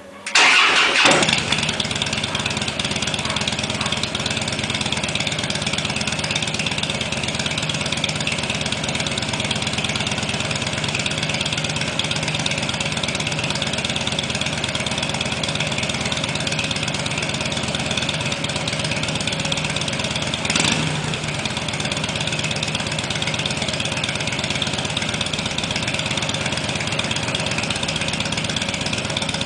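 Harley-Davidson Fat Boy's air-cooled V-twin engine starting, catching almost at once and settling into a steady idle, heard at the exhaust's chrome dual mufflers. The idle briefly gets louder about twenty seconds in.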